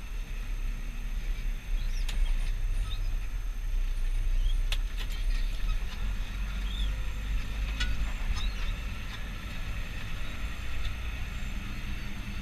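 Valtra 8350 tractor running steadily with a deep, continuous engine rumble, with a few sharp clicks or rattles standing out now and then.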